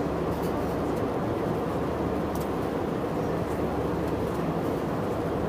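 Steady cabin noise of an Airbus A320 in cruise: the even, low rush of airflow and engines heard from inside the cabin.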